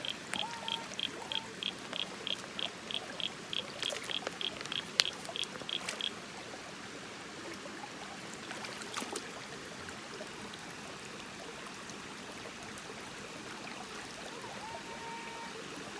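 Creek water running steadily. For the first six seconds a high-pitched beep repeats about four times a second and then stops, with one sharp click about five seconds in.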